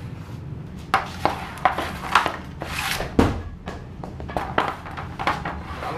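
Hockey stick blade clacking and scraping on a plastic shooting pad as pucks are shot, a string of sharp knocks with a heavier thud about three seconds in.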